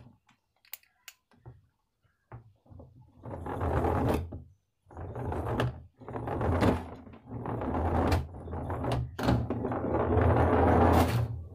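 Small battery-driven DC motor of a homemade toy car running, with its bottle-cap wheels rolling over a hard surface: a steady low hum under a rattling noise, starting about three seconds in and breaking off briefly a few times. Before it starts, a few faint clicks of the parts being handled.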